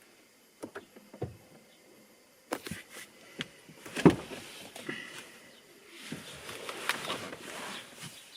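Scattered clicks and knocks of someone moving about and handling things inside a car, with one louder knock about four seconds in and a stretch of rustling and shuffling near the end.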